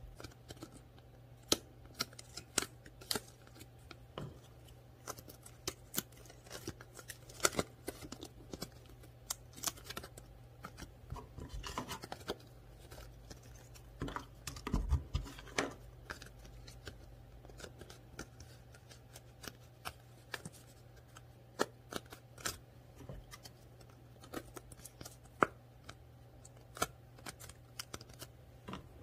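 Cut-out paper doll and paper clothing pieces being handled: irregular light clicks, taps and rustles of stiff paper, denser for a moment about halfway through, over a faint steady hum.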